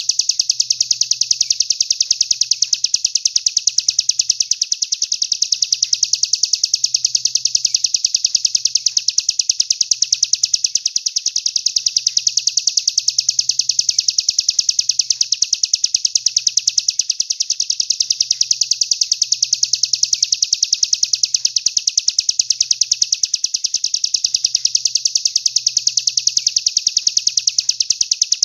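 A songbird singing a very rapid, high-pitched trill without a break: a rapid-fire 'tembakan' song phrase, played on a loop as a master recording for training competition songbirds.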